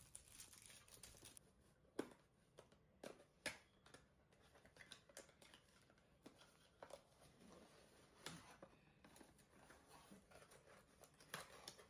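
Faint handling of a cardboard gift box and its paper packaging as it is opened: light rustling with scattered clicks and taps, the sharpest about two and three and a half seconds in.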